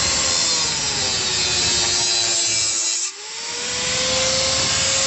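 Electric angle grinder running with its disc against a steel motorcycle exhaust pipe, giving a loud hissing grind over the motor's whine. The whine sags in pitch as the disc bites, then rises back about three seconds in when the load eases.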